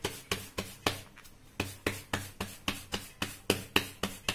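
Bajra (pearl millet) bhakri dough being patted flat by hand on a flour-dusted steel plate: quick soft pats, about four a second, with a short pause about a second in.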